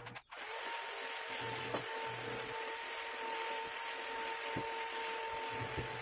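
A steady machine hum with an even whine, cutting out briefly at the start, and a single light knock about two seconds in.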